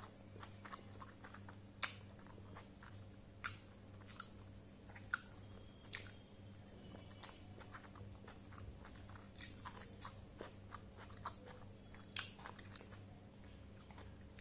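Close-up chewing and biting of soft steamed veg momo dumplings, with many short, sharp wet mouth clicks and smacks scattered throughout, the loudest a few seconds in. A low steady hum runs underneath.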